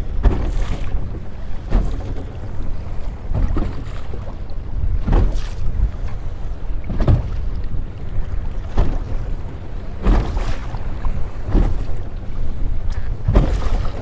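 Small waves slapping against the hull of a motorboat in a regular rhythm, about one slap every second and a half to two seconds, over a steady low rumble of wind on the microphone.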